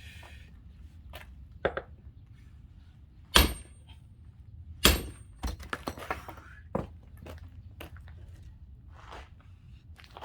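Axe splitting firewood: two loud, sharp strikes about a second and a half apart, the first the loudest, followed by a run of lighter knocks of wood.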